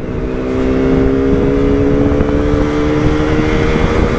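Sport motorcycle engine pulling steadily under throttle, its pitch rising slowly as the bike gains speed, with wind noise rushing over the helmet microphone.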